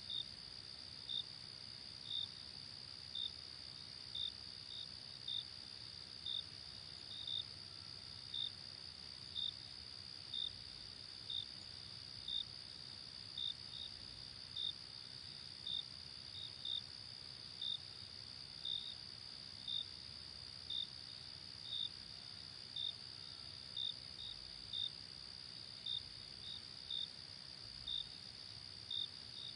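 Night-time insect chorus: a steady high trill, with a single cricket chirping about once a second, now and then twice in quick succession.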